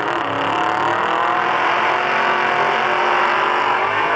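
Supercharged drag-racing car engine revved hard through a burnout, the rear tires spinning; the engine note wavers and grows louder near the end.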